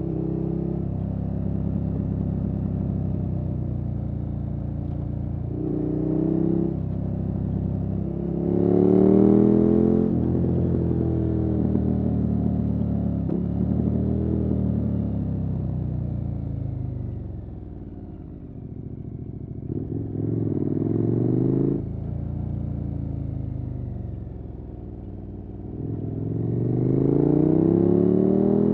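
KTM 1290 Super Adventure S's V-twin engine through an aftermarket Wings exhaust, pulling hard several times with the pitch climbing, then dropping back as the throttle closes between pulls. It is quietest just before the middle and again near the last few seconds, before a final strong pull.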